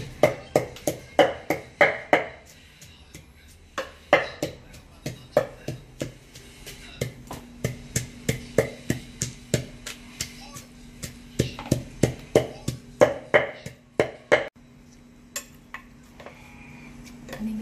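Pestle pounding in a mortar of shredded green papaya and seafood, a steady run of sharp knocks about three a second with a couple of short pauses: the pounding-and-tossing step of making Thai papaya salad.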